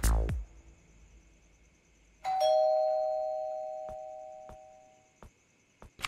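Two-note ding-dong doorbell chime, a higher note then a lower one, ringing once and fading away over a couple of seconds. A few faint clicks follow.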